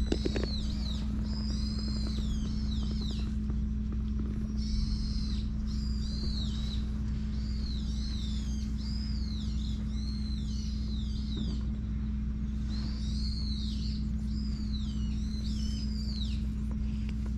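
A songbird singing, repeating phrases of quick rising-and-falling whistled notes with short pauses between them, over a steady low hum.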